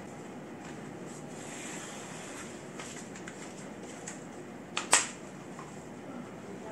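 Painted wooden cabinet boards being handled and stacked on newspaper over a tiled floor: faint handling clicks, then a sharp double knock about five seconds in as a board is set down.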